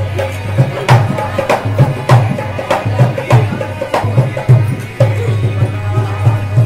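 Qawwali accompaniment: a harmonium holding steady tones under an even hand-drum beat with a deep bass stroke, a little under two beats a second.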